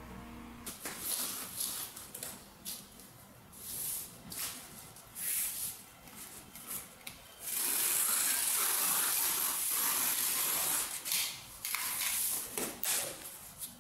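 Cardboard being handled: short rustling scrapes, then a long steady hiss of about three seconds from around halfway, then more short scrapes near the end.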